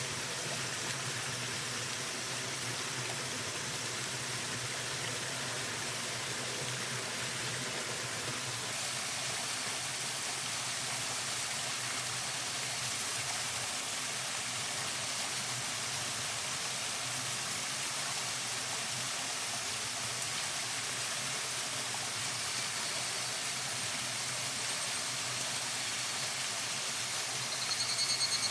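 Steady rushing of flowing water. A high, pulsing call comes in near the end.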